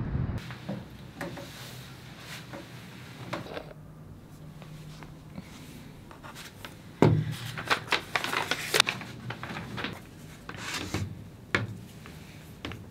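Desk handling noises in a small room: irregular knocks, clatter and rubbing as objects and papers are moved about on a wooden desk, starting about halfway through, after a low steady hum.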